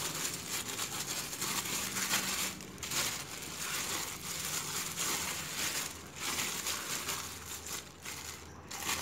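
Clear plastic bag crinkling and rustling as it is squeezed by hand around soft meatball paste, with a few brief pauses.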